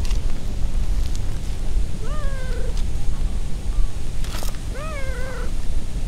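A cat gives two short meows about three seconds apart, each rising then falling in pitch, while being stroked. A low wind rumble on the microphone runs underneath, with one sharp click just before the second meow.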